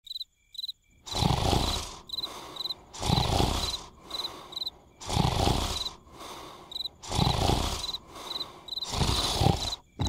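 Cartoon snoring from sleeping larvae: from about a second in, a loud snore comes about every two seconds with a softer breath between, over crickets chirping in short paired chirps.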